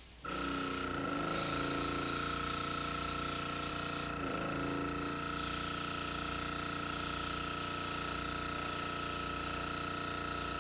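Airbrush spraying high-gloss clear coat onto a diecast car body: a steady hiss of air and atomised clear, over a steady hum from the compressor feeding it. The hiss thins briefly twice, about a second in and about four seconds in.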